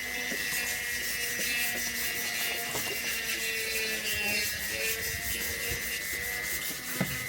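Abrasive paper rubbed back and forth on a bamboo tube in steady, even strokes, shaping the body of a Samoan nose flute. A faint steady hum sits underneath.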